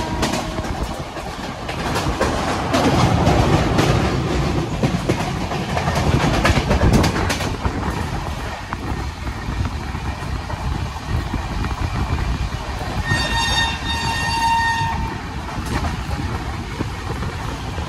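Passenger train running at speed, heard from an open coach doorway: steady wheel and rail noise with some clattering over rail joints. A train horn sounds for about a second and a half near the end.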